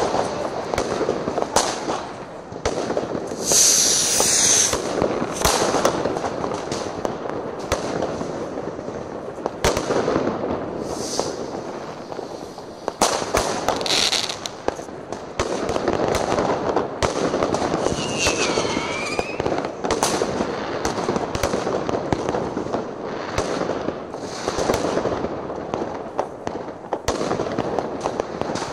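Many fireworks going off in a dense stream of bangs and crackles. A hiss rises above them around four seconds in and again around fourteen seconds, and a falling whistle is heard about eighteen seconds in.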